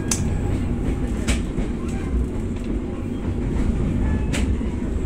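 Passenger train running, heard from inside the carriage: a steady low rumble of wheels on the track, with three sharp clicks, one at the start, one about a second in and one near the end.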